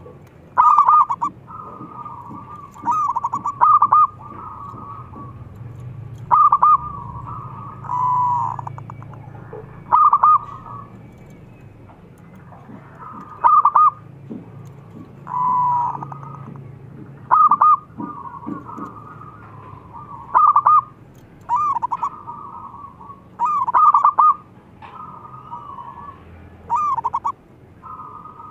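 Zebra dove (perkutut) cooing: short, fast stuttering coo phrases repeated about every two seconds, with quieter cooing running between them.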